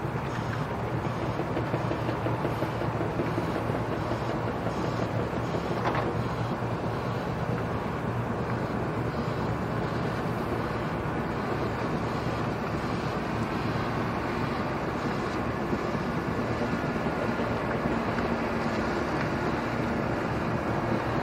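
Diesel freight train, a Class 66 locomotive hauling covered hopper wagons, passing at a distance: a steady low engine drone with the rumble of the wagons. A brief tick about six seconds in.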